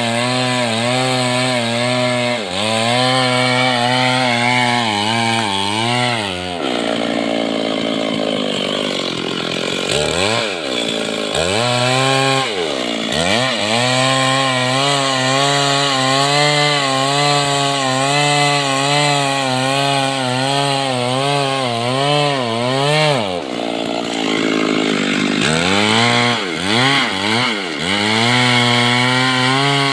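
Stihl MS 382 two-stroke chainsaw cutting into teak wood, its engine note wavering as the chain loads in the cut. Several times the revs drop and climb back up.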